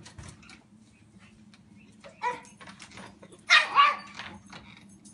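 Dog barking: one short bark about two seconds in, then two louder barks in quick succession a little after three and a half seconds.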